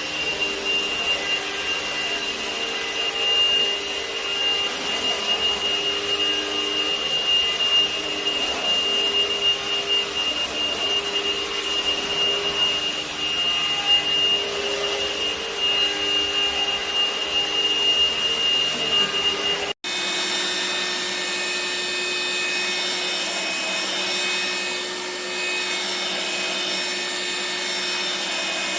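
Tefal X-Nano TY1129 cordless handstick vacuum cleaner running steadily, its motor giving a high whine over a lower hum. About 20 seconds in the sound breaks off for an instant and resumes with a different, brighter mix of tones.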